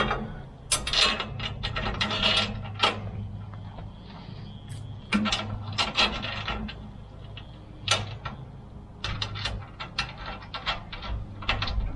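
Clinks, rattles and scrapes of metal hardware and tools being handled during the rack assembly, in irregular clusters, over a steady low hum.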